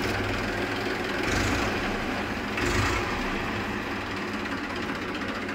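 Massey Ferguson 241 DI tractor's three-cylinder diesel engine running steadily at idle, with two brief louder surges about one and a half and three seconds in. The engine is in good running order: performance is called very good, with no smoke and good oil pressure.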